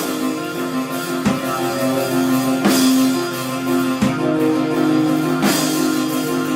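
Rock band playing live: held, droning guitar notes over drums that strike about every second and a half, with cymbals crashing twice.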